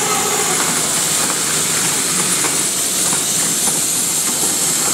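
Loud, steady machine noise with a strong high hiss and no clear rhythm or pitch changes.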